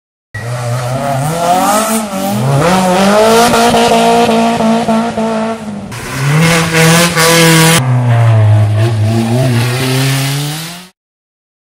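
Rally car engine revving hard, its pitch climbing and dropping several times as it changes gear, with a hissier stretch about six to eight seconds in; the sound breaks off abruptly near the end.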